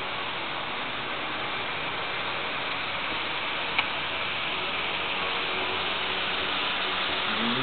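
Steady hiss of background noise, with a single sharp click a little under four seconds in.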